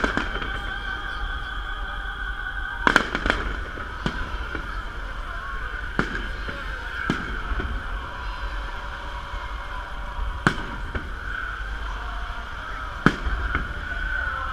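Fireworks salute: aerial shells bursting with sharp bangs every few seconds, a quick double bang about three seconds in, over a steady background din.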